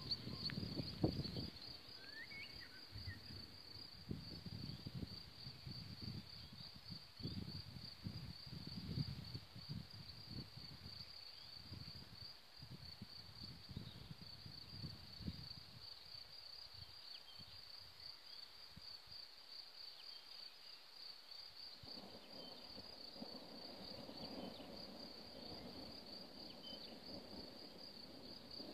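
A cricket chirping in a high, evenly pulsing trill, faint and steady, with uneven low rumbling through the first half and a brief bird call about two seconds in.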